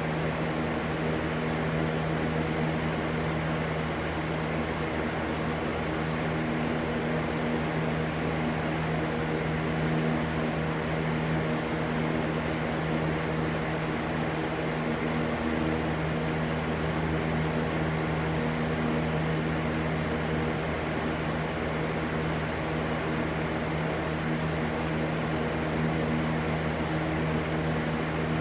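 Steady rushing white noise with a constant low hum running under it, unchanging throughout.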